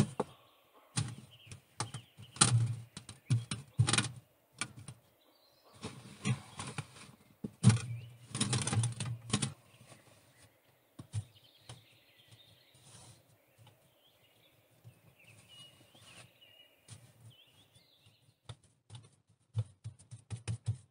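Hands slapping, pressing and smearing wet clay around a bucket stove's chimney pipe, in quick runs of wet slaps and rubs during the first half. Then it goes quieter, a bird chirps faintly a few times, and a few small clicks and dabs come near the end.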